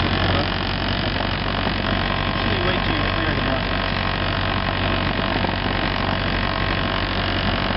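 Cessna 172's piston engine and propeller running at low power, a steady low drone heard inside the cockpit as the plane taxis.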